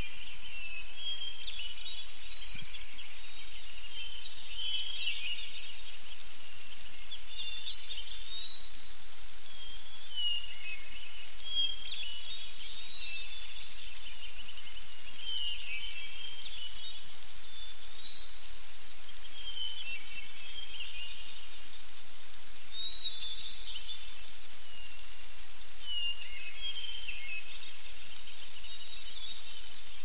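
Several small songbirds singing and chirping, with short whistled notes overlapping all through, over a steady high hiss. A run of high, evenly repeated notes comes in the first few seconds, with two louder notes about two to three seconds in.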